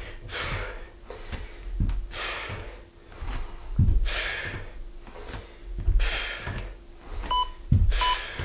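Bare feet thudding on a wooden floor during reverse lunges, about one step every two seconds, with hard breathing between. Near the end an interval timer gives a few short beeps, counting down the last seconds of the work period.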